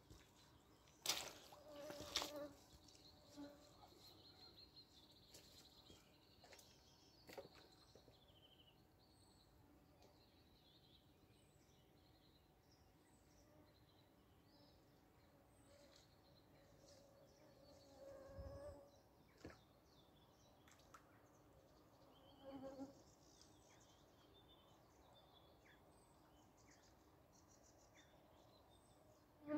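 Near silence by a pond, with faint scattered bird chirps and a flying insect buzzing briefly past the microphone twice in the second half, plus a few soft knocks and a buzz near the start.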